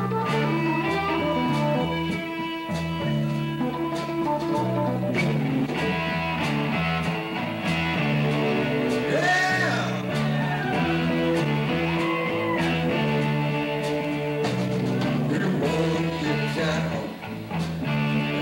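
Live band playing: electric bass walking through a steady bass line under electric guitar and a drum kit, with singing in the middle.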